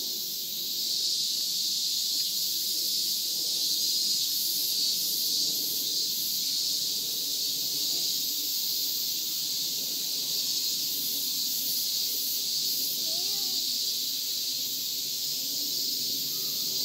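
Steady, shrill, high-pitched drone of an insect chorus, cicadas in summer trees.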